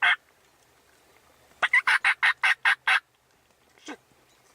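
Turkey yelping: a quick run of about eight short, evenly spaced notes starting about a second and a half in, then one faint short note near the end.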